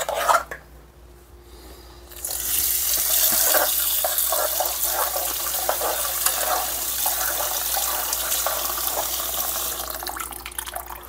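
Kitchen faucet running cold water into a small saucepan of tomato and sausage sauce at the sink, starting about two seconds in and easing off near the end, after a few light knocks.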